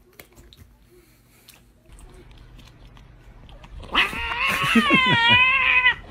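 A cat yowling: one long, wavering call that starts about four seconds in and lasts about two seconds, after a few faint clicks and knocks.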